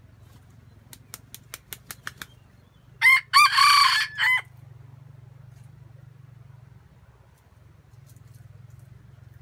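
Red junglefowl rooster flapping its wings in a quick run of about seven claps, then crowing once: a loud, short crow of about a second and a half in several parts.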